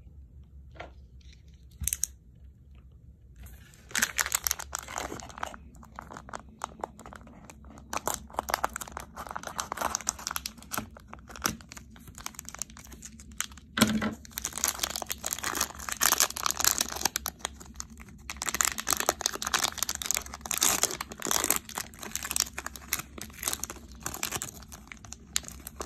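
Plastic wrapper of a Topps Update baseball card pack crinkling and tearing as it is pulled open by hand, in dense rapid crackles that begin about four seconds in. There is one sharp knock partway through.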